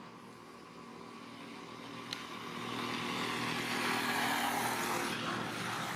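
A motor vehicle passing by: its engine hum is steady underneath while its noise swells from about two seconds in, peaks around four seconds and eases off near the end. A single sharp click about two seconds in.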